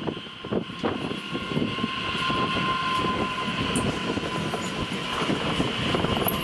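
A train running past on the tracks: wheels clattering over the rails with a steady high whine running through, the noise growing louder as it goes.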